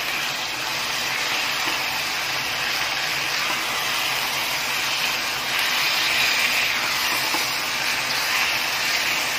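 Minced meat and onions sizzling in hot mustard oil in an aluminium pressure cooker pan, stirred with a wooden spatula: a steady frying hiss.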